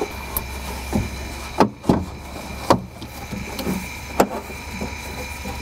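About four sharp knocks and clunks of window glass and door metal as the car's rear door glass is worked down into the window regulator's clip inside the door. The loudest comes a little under two seconds in, and a steady low hum runs underneath.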